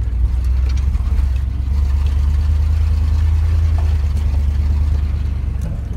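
Car or truck engine and road rumble heard from inside the cab while driving, a steady low drone with a few light rattles.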